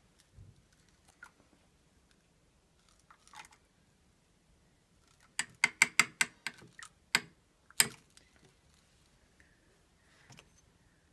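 A quick run of about eight sharp clicks and clinks over a second and a half, then one more, as indium metal is put into a small glass beaker of melted gallium, hard pieces knocking against the glass. A few faint ticks come earlier.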